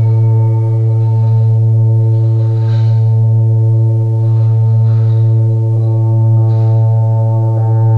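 Yamaha DX7 FM synthesizer playing a slow ambient pad: a held chord over a strong low note, with soft new notes entering a few times. The chord shifts near the end.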